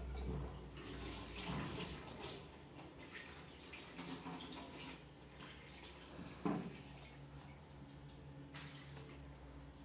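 Water running and splashing as a kettle is handled, loudest in the first couple of seconds and then fading. A single knock about six and a half seconds in.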